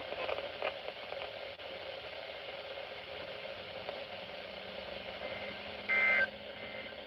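Hiss and static from a NOAA Weather Radio receiver. About six seconds in comes a short, loud burst of warbling two-tone EAS SAME data tones.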